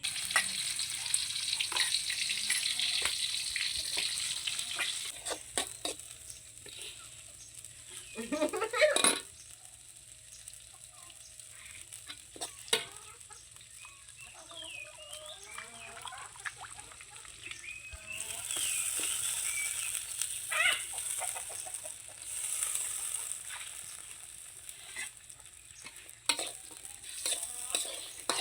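Frog meat frying and being stirred in a pan, the hot oil sizzling loudest in the first few seconds and again about two-thirds of the way in, with utensil clatters. A chicken clucks in the background.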